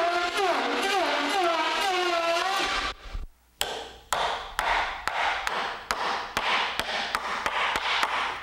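Electric hand planer running as it cuts across a wooden board, its motor pitch wavering under load, until it stops about three seconds in. Then a hammer strikes a steel chisel into the wood in a quick run of sharp blows, about three a second.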